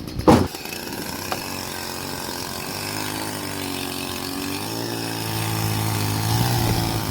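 A loud knock about a third of a second in, then a chainsaw engine running steadily, its pitch wavering up and down and rising slightly toward the end.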